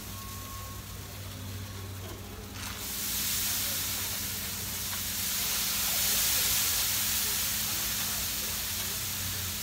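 Handheld pump pressure sprayer spritzing liquid onto ribs in a smoker: a steady hiss that starts about two and a half seconds in and keeps going.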